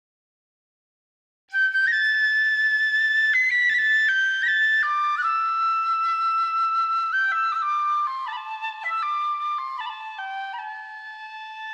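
Background music: a solo flute melody of stepped notes that comes in after about a second and a half of silence, drifts lower in pitch and grows quieter toward the end.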